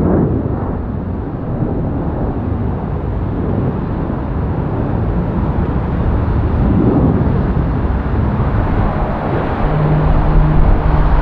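Jet engines of a Boeing 757 climbing out after takeoff: a loud, steady rumble with crackle. Near the end a steady low hum comes in.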